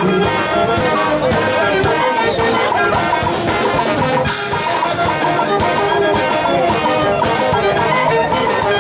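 Dance band music led by brass (trumpets and trombones) over a steady beat.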